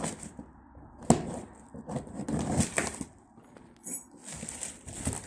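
Used metal door closers being handled while unpacked from a box: several sharp knocks and clunks, the loudest about a second in, with rustling of packaging and a brief metallic clink about four seconds in.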